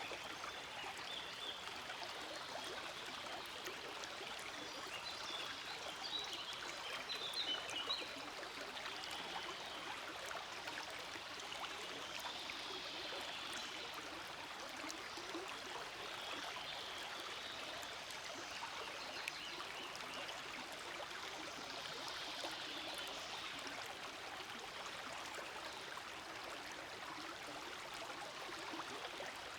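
Forest stream flowing steadily, a continuous rush and babble of running water, briefly a little louder about seven seconds in.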